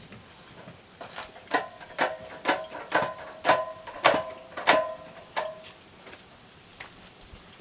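A metal utensil striking metal cookware about nine times, roughly two a second, each hit ringing briefly.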